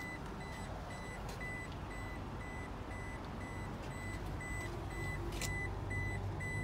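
An electronic warning beeper repeating a short, high beep about two and a half times a second, over a low vehicle rumble that grows a little louder near the end. A sharp click comes about five seconds in.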